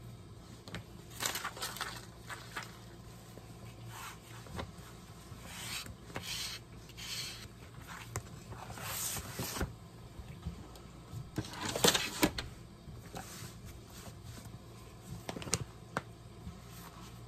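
Sheet of decorative paper rustling and scraping as it is handled, slid over a cutting mat and smoothed with a plastic scraper, in several short bursts with light taps between them; the loudest rustle comes a little past the middle.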